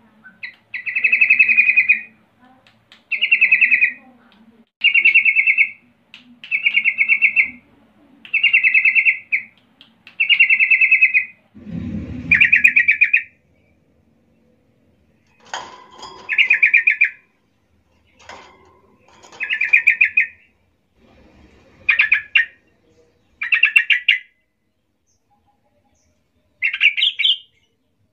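Yellow-vented bulbul calling: a run of short, rapidly pulsed, buzzy phrases, each about a second long, repeated roughly every two seconds, then after a brief pause more calls at uneven intervals. A low thump sounds under one call about twelve seconds in.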